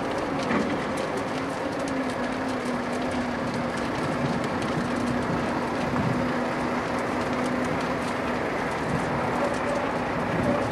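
Steady mechanical running noise: a constant low hum with an even rush and faint scattered ticks over it.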